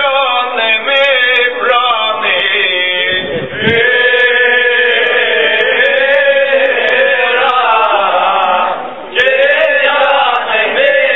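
A group of men singing a Cretan rizitiko song together, unaccompanied, in long drawn-out phrases with two brief breaks between them, about three and a half seconds in and near nine seconds.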